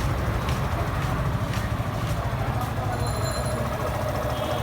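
Motorcycle engine running steadily, a low rumble with a few faint clicks.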